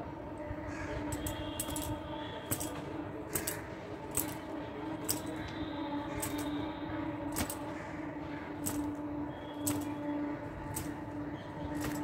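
Bangles clinking in short metallic jingles, roughly once a second, as the arms swing a cotton towel, over a steady low hum.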